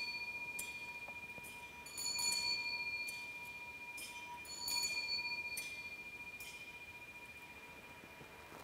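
Altar bell rung at the elevation of the host after the consecration: struck twice, about two and a half seconds apart, over the ring of a strike just before, each ringing on with a long, clear, fading tone.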